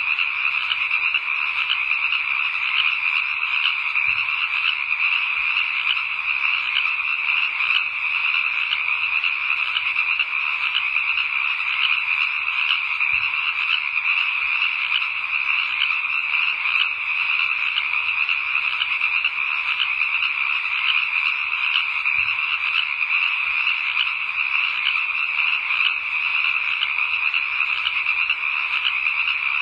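A steady, dense chorus of small calling animals, unbroken and unchanging in level, like a night-time frog chorus.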